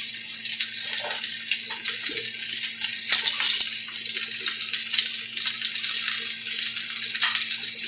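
Meatballs sizzling in hot oil in a cast-iron skillet: a steady high hiss, with a few light clicks as metal tongs turn a meatball.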